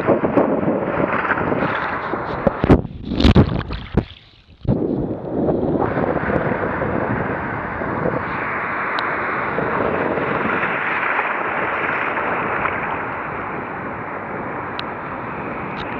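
Sea water sloshing and splashing around a camera at the waterline as small surf waves wash over it. About three seconds in come a few loud splashes, then the sound drops out for about half a second before the steady wash of water returns.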